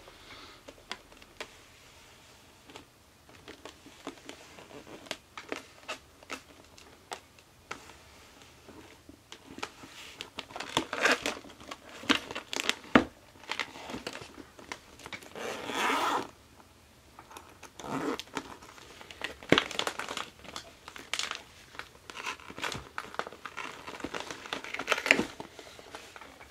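Clear plastic zip bag of a Slime Smart Repair tyre repair kit crinkling and rustling as it is handled and unzipped, with scattered light clicks and taps. The handling is sparse at first and gets busier about ten seconds in.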